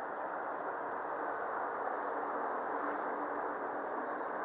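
Steady rushing of a shallow river flowing over stones, an even noise that does not change.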